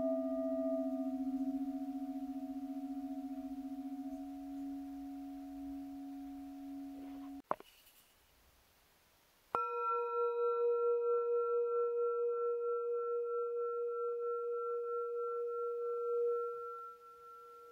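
Singing bowls: a low-pitched bowl rings out with a slowly wavering tone and stops abruptly about seven seconds in. After a two-second gap a higher-pitched bowl is struck and rings with a wavering hum, fading away near the end.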